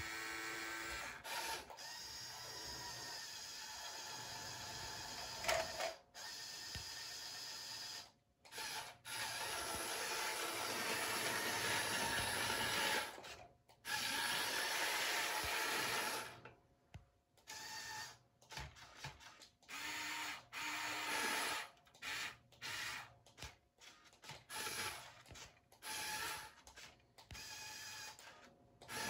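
Small electric motors of a brick-built RC forklift (Happy Build YC-22012) whirring as the model is driven and its fork mast is tilted and raised. The whine runs in longer stretches at first, then in many short stop-start bursts from about halfway.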